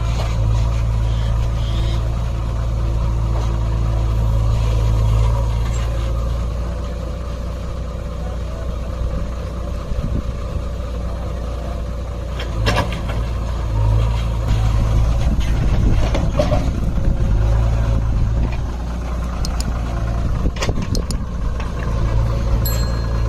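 JCB 3DX backhoe loader's diesel engine working its digger arm, the engine note rising and falling with the hydraulic load. A sharp clatter comes about halfway through as the bucket swings over the truck bed, and a few smaller knocks follow near the end.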